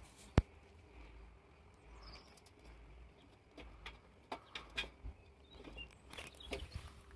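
Metal tongs clinking against the inside of a galvanised charcoal chimney starter as they stir the lit charcoal. One sharp clink comes just after the start, then scattered lighter clicks and taps.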